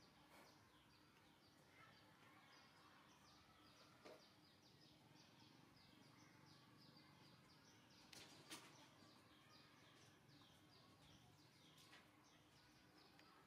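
Faint background of small birds chirping: many short, quickly falling chirps repeated over and over, with a few soft clicks about four and eight seconds in.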